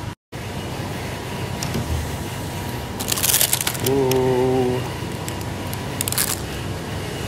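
Plastic food packaging crinkling as packs are handled in a shop's chest freezer, in two short bursts about three and six seconds in, over a steady background hum. About four seconds in comes a brief low humming tone lasting under a second.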